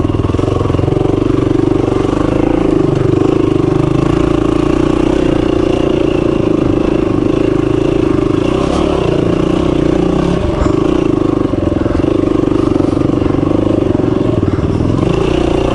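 Dual-sport motorcycle engine running close up under varying throttle as the bike rides a rough dirt wash, with a few brief knocks along the way.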